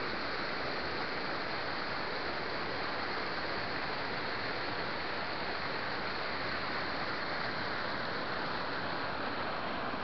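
Steady rush of water spilling down the tiered cascades of the Kuang Si waterfall into its pools.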